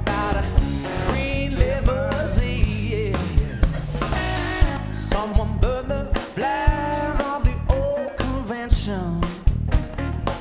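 A live rock band playing: electric guitar, electric bass and a drum kit keeping a steady beat.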